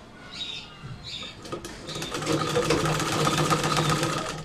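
Sewing machine stitching a seam along the edge of the kameez placket fabric. It starts about a second and a half in and runs as a fast, steady clatter of rapid stitches, then stops just before the end.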